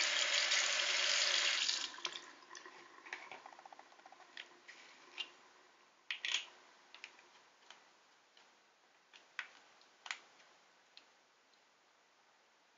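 Bathroom tap running onto a toothbrush for about two seconds, then shut off. Then scattered light plastic clicks and taps as a toothpaste tube and its cap are handled on the sink edge, the loudest about six and ten seconds in.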